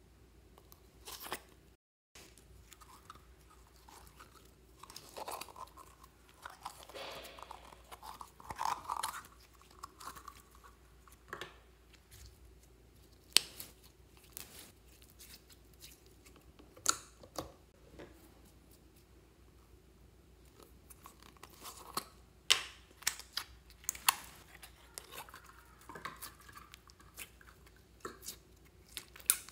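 Slime being handled: sticky crackling and squishing as a white cotton-mud slime is pulled apart and pressed into a bin of mixed slimes, and a clear green jelly slime is squeezed. Scattered sharp clicks stand out above the soft crackle, several of them in the second half.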